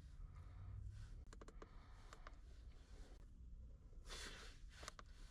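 Faint clicks and taps of a handheld scan tool being operated, with a brief rustle about four seconds in.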